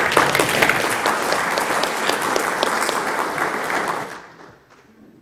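Audience applauding, a dense patter of many hands clapping that starts at once, holds steady for about four seconds, then dies away.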